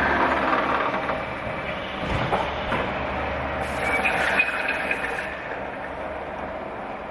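Industrial machinery running with a steady mechanical clatter and hum, with a couple of knocks about two seconds in.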